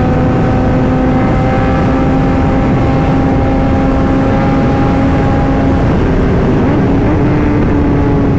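Kawasaki ZX-10R inline-four engine running at a steady cruise, its note holding even, under heavy wind rush on the rider's microphone. About six seconds in a second, higher tone wavers briefly.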